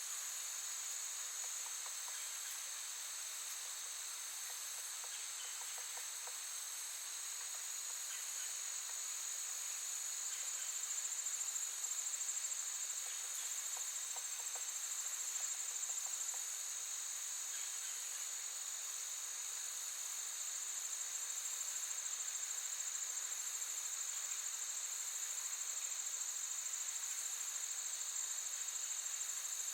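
Crickets chirping in a continuous, steady high-pitched chorus, as in a fall night outdoors.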